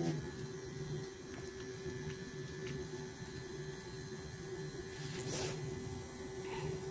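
Tattoo machine running on a power-supply setting of 5, a steady buzzing hum as pale pink ink is packed into practice skin. A short rustle about five seconds in comes from the skin being wiped.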